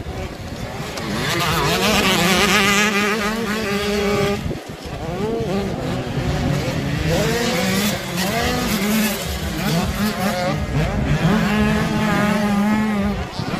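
Motocross bike engines revving hard, their pitch rising and falling with each throttle change as they race past. The sound drops out briefly about four and a half seconds in.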